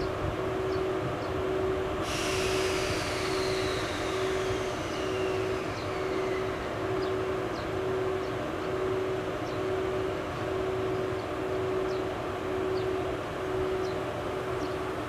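EF81 electric locomotive moving slowly with its container wagons, giving a steady hum. Over it, a mid-pitched tone pulses about once a second. About two seconds in, a hiss starts and a high whine falls in pitch over about four seconds.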